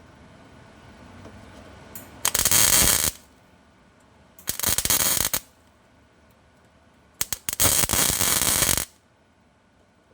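MIG welder laying three short tack welds on sheet-steel repair panel flanges, each a crackling burst of arc lasting about a second, the last one longer. The three bursts start about two seconds in, about four and a half seconds in, and about seven seconds in.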